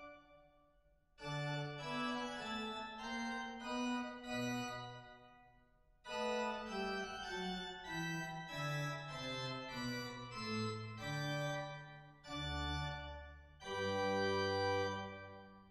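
Slow background organ music of sustained chords, in phrases broken by short pauses, with deep bass notes entering near the end.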